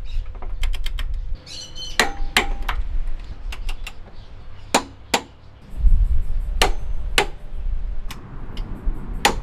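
A series of sharp metallic clinks and knocks, some of them ringing briefly, from tools and car parts being handled, over a low rumble.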